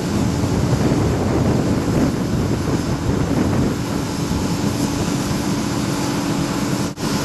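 Combine harvester running steadily while it unloads grain through its auger: a constant engine and machinery drone with a steady hum. The sound drops out for an instant near the end.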